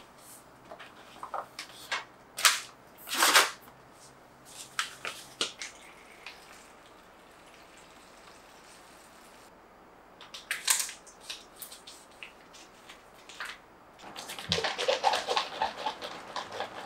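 Handling noises of plastic spouted drink pouches and tableware: scattered rustles and clicks, two loud plastic crinkles a few seconds in, and a busy run of rustling and light clinks near the end.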